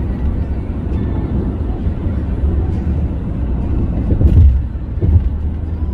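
Steady low rumble of a moving vehicle, with two heavy thumps about four and five seconds in.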